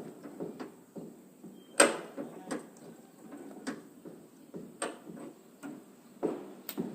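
Scattered clicks and knocks of objects being handled, with sharper taps about two seconds in, about five seconds in and near the end.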